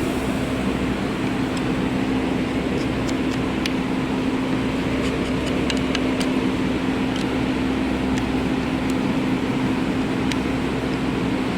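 Ford engine idling steadily, a constant hum with scattered light ticks over it: the engine knocking at idle.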